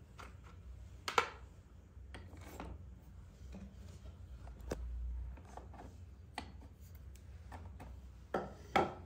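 Dry, brittle clay slate pieces knocking and scraping against one another as they are set into a plastic tub, with one sharp clack about a second in and a couple of louder clacks near the end.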